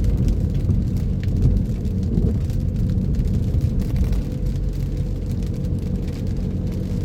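Car driving in the rain: a steady low hum of engine and road noise, with faint ticks of raindrops scattered through it.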